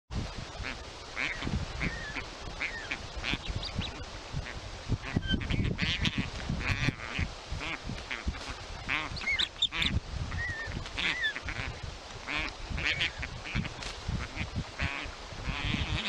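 Osprey chicks calling over and over with short, high chirps and slurred squeals as they squabble in the nest, over a low rumble.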